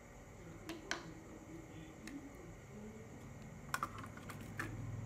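Light clicks and taps of a laptop motherboard being handled, picked up, turned and set down on the bench, with a quick cluster of clicks about four seconds in. A low hum comes up near the end.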